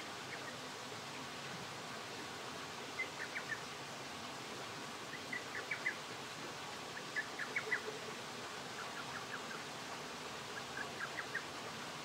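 Steady hiss of a small stream, with about five short bursts of rapid clicking calls, each a quick run of four to six high notes, spaced a couple of seconds apart.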